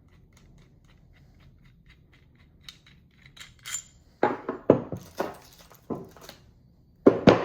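Steel connecting rod and rod bolt being handled: a run of light, regular ticks at about four or five a second, then metallic clinks and several loud clanks and knocks, the loudest two near the end.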